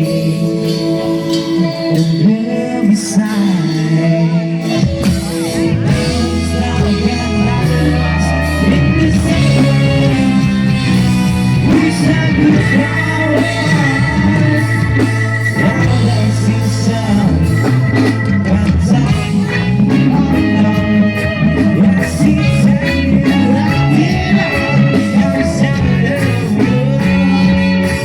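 Live band playing a song with a male singer, amplified through a PA during a sound check. The low bass part comes in about five seconds in and carries on under the vocal.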